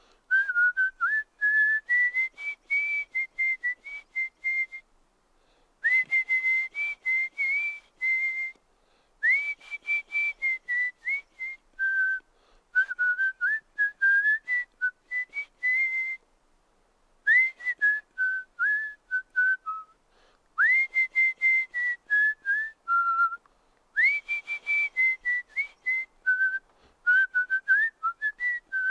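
A person whistling through the lips: phrases of quick, short notes wandering up and down in pitch, with short breaks between phrases. Several phrases open with an upward swoop into the first note.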